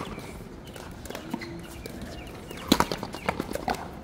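Sharp knocks of a paleta frontón rally: a wooden paddle striking the ball and the ball hitting the wall. The loudest knock comes a little under three seconds in, with a couple of lighter ones after it.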